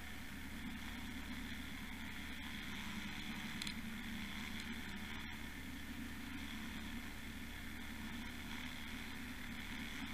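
Steady underwater rush of water flowing past a trolled camera housing, with the low, even drone of the trolling boat's motor carried through the water. A few faint ticks sound over it.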